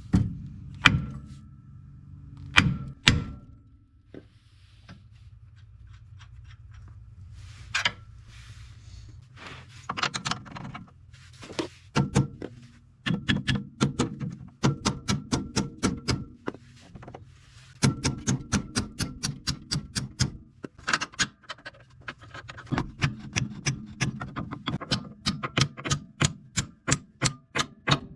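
Hammer blows on metal, driving a control arm bolt out of the front suspension of a 1999 Chrysler Sebring: a few single strikes, then quick runs of about three to four blows a second with a slight metallic ring.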